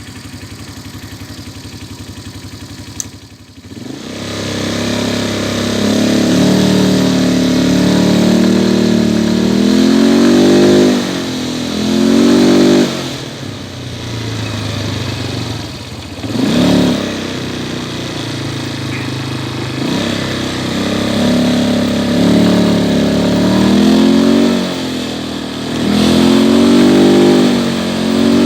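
A 180 cc ATV engine runs quietly for the first few seconds, then is revved up and down repeatedly, its pitch rising and falling with each throttle blip.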